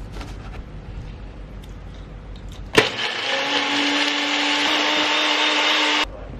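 Blender switched on about three seconds in, running steadily as it purées cashews, garlic, water, oil and lemon into a vegan cashew aioli, then cut off suddenly about three seconds later.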